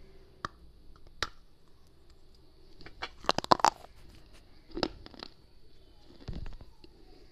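A person biting and crunching hard edible clay right at a small microphone held to the lips: a few scattered sharp cracks, a quick run of loud crunches about three seconds in, and more crunching about five seconds in.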